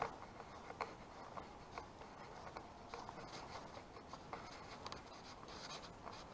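Faint footsteps of a walker on a paved path, a soft scuffing step about every second.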